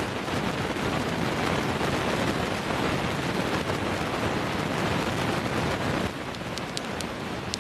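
Flaxseeds being dry-roasted and stirred with a metal spatula in a metal kadhai: a steady gritty rustling and scraping of seeds across the pan. Near the end come a few sharp pops as the seeds begin to crackle lightly.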